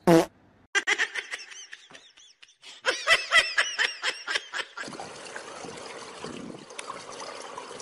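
A person laughing in two runs of quick, high pitched bursts. Right at the start there is a short, loud falling cry, and from about five seconds in a steady faint outdoor hiss.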